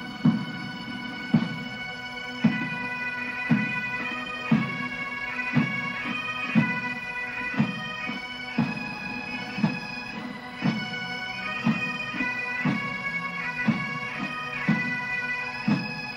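Pipe band music: bagpipes playing a melody over their steady drone, with a drum beating about once a second.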